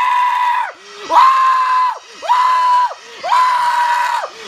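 A high-pitched voice shrieking in celebration just after the New Year countdown: four long held shrieks of about a second each, with short breaks between them, each sliding up at the start and down at the end.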